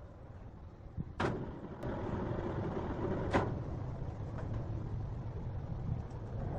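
Heavy woodworking machinery running with a low, steady rumble, broken by two sharp knocks about two seconds apart.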